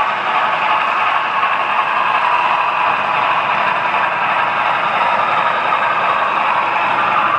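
Model train running along layout track: a steady rolling noise of wheels on rail and drive motors, without any clear beat.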